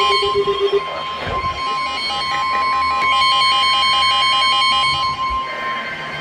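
NOAA Weather Radio's steady 1050 Hz warning alarm tone, which signals that a warning follows. Over it runs a rhythmic electronic beeping pattern that stops and starts again.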